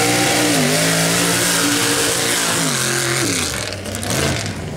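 Modified mud-racing pickup's engine at full throttle down the dirt track. Its pitch holds high with a brief dip, then falls away about three seconds in as the truck gets farther off.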